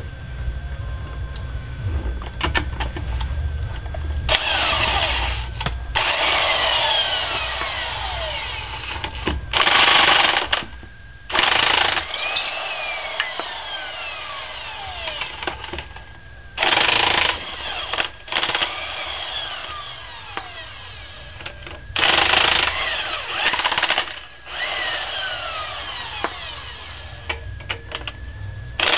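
Impact tool hammering in about six bursts of a second or so each, with quieter stretches between them in which a falling whine can be heard.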